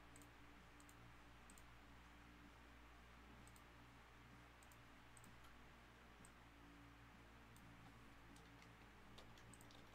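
Faint computer mouse clicks, a dozen or so at irregular intervals, over a steady low electrical hum. The user says the mouse has stopped clicking the way it normally does.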